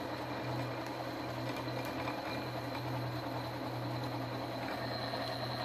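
A 6040 CNC router's spindle running with a 3 mm end mill cutting 304 stainless steel bar. It makes a steady low hum with a thin high whine over a continuous hiss of cutting.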